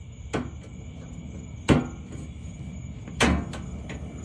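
Plastic push-pin retainer clips of a Jeep Wrangler JK cowl being pried out with a forked trim removal tool: three sharp snaps about a second and a half apart, the middle one loudest, with lighter clicks of plastic between.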